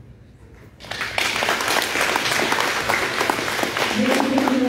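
Audience clapping, breaking out about a second in after a short lull and going on steadily. A voice starts speaking over the applause near the end.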